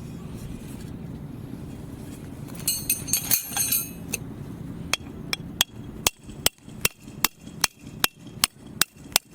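Camping peg hammer striking a forged steel tent peg: about a dozen sharp, evenly spaced metal-on-metal blows, about two and a half a second, in the second half. Before them, about three seconds in, comes a short burst of ringing metallic clinks.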